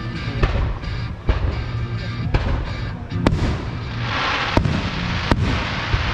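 Fireworks going off in a public display: six sharp bangs about a second apart, with a dense crackle setting in about four seconds in, over music playing underneath.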